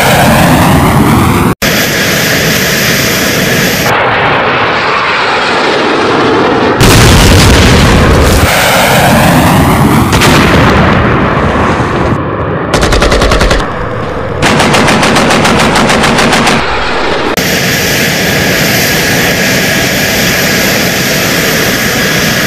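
Edited war sound effects: jet aircraft passing close with a falling pitch, and a little past halfway, long bursts of rapid automatic gunfire.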